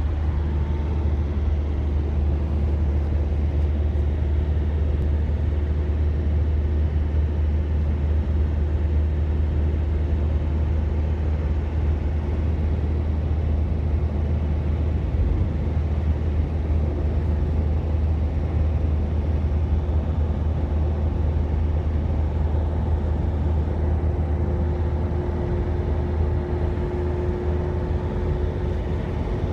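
A steady low engine-like drone that does not change, with a faint higher tone that grows a little stronger near the end.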